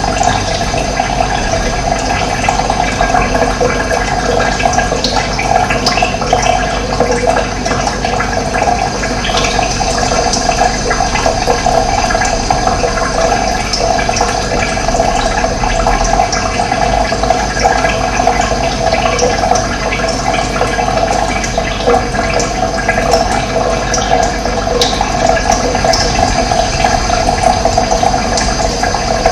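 Running water flowing steadily, a continuous rushing sound with no breaks.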